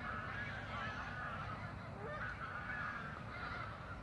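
A flock of geese honking, many calls overlapping continuously.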